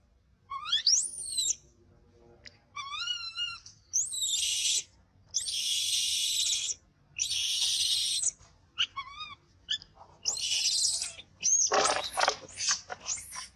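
Baby macaque screaming in distress: high, thin whistling cries that rise in pitch, then a run of harsh, shrill screams about a second long each. The cries turn rougher and more broken near the end.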